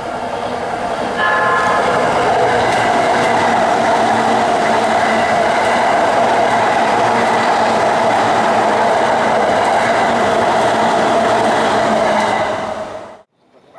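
E353 series electric limited express train passing close by: a loud steady rush of running gear with a faint regular clatter of wheels over rail joints. A short horn blast sounds about a second in as the train arrives. The sound cuts off abruptly near the end.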